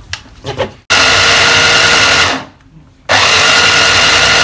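Electric stick blender running on its chopper bowl attachment in two bursts, about a second and a half and then about three seconds with a short pause between, a steady whine over the whir of the blade. It is chopping garlic and shallots with a little water into a paste.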